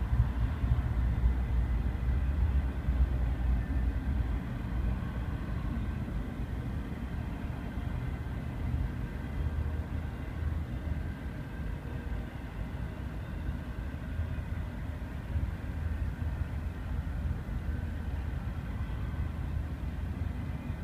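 Double-stacked intermodal freight train rolling past close by: a steady low rumble, a little louder in the first few seconds, heard from inside a car.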